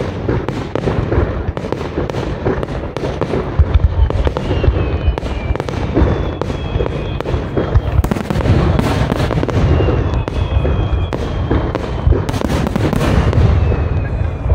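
Fireworks finale: a dense, continuous barrage of shell bursts and crackling bangs over a deep rumble. Several high whistling tones glide slightly downward in pitch partway through.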